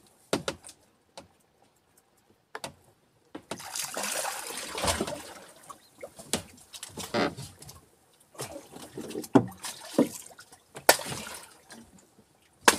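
Water splashing at the side of a small boat, with scattered knocks and clicks of fishing line and gear against the hull while a hand line is hauled in. A longer stretch of splashing comes a few seconds in.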